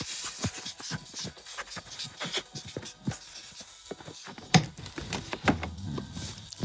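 Pens scratching and tapping on small cards as answers are written, with scattered short clicks from handling; one sharper click a little past halfway.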